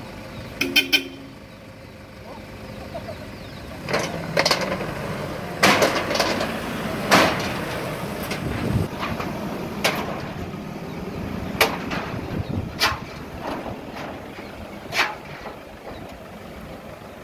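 A minivan driving slowly up the steel ramps of a car carrier trailer, its engine running under a series of irregular loud clanks and bangs as the tyres roll over the metal ramp plates and joints.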